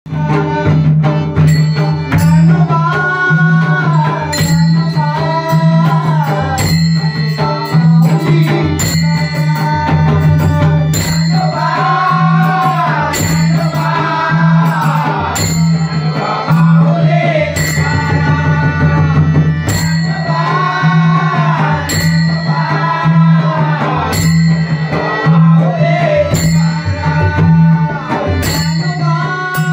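Marathi devotional bhajan: a male voice singing over a harmonium drone, with a pakhawaj drum and brass taal hand cymbals clashing on a steady beat of about three strikes every two seconds.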